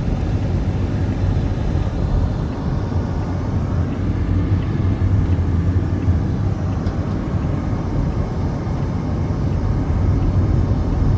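Steady low rumble of a car driving along a road: engine and tyre noise from the moving vehicle.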